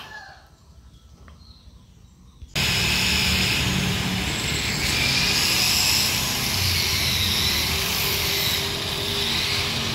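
Low background for about two and a half seconds, then loud, steady machine noise with a hiss and a low hum starts suddenly and keeps going.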